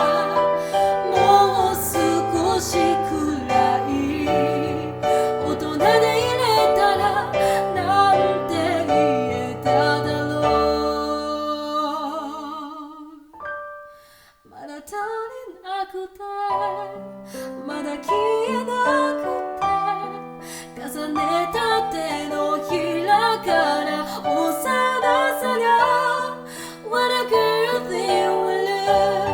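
Female vocalist singing a slow ballad with solo piano accompaniment. About halfway through, the music fades almost to silence on a held note, then voice and piano come back in.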